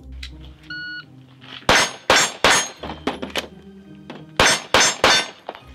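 A shot timer beeps once, then a pistol fires three quick shots, pauses briefly for the reload, and fires three more quick shots, a 3-reload-3 drill on steel targets.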